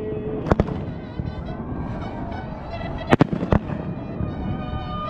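Aerial fireworks shells bursting with sharp bangs: two close together about half a second in, then two more just after three seconds and another half a second later, over a constant crackling haze. Mariachi music plays underneath.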